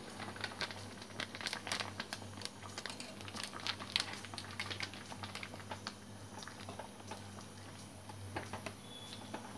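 Pot of moong dal with bottle gourd boiling: many small irregular pops and crackles of bubbles bursting at the surface, over a low steady hum.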